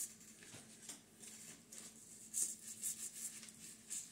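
Faint scratchy rustling of fingers rubbing and pressing a wet, sticky tape flap onto old cardboard, in short strokes that bunch up about two to three seconds in.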